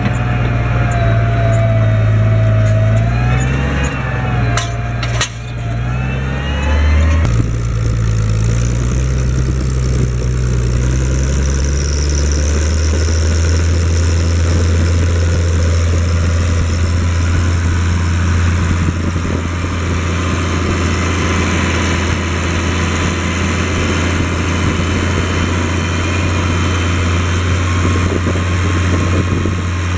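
Case IH 1056 XL tractor's six-cylinder diesel engine running while ploughing with a four-furrow plough. In the first few seconds a wavering whine and a few sharp knocks sit over the engine; about seven seconds in the sound turns to a steady, deeper drone.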